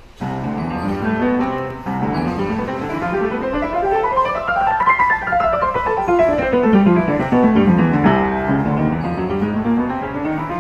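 Yamaha upright piano being played. It opens with a few chords, then fast runs sweep up the keyboard, come back down, and start climbing again near the end.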